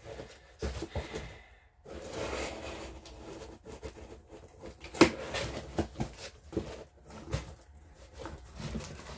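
Cardboard box being handled and set in place: scattered rustles and knocks, with one sharp knock about five seconds in.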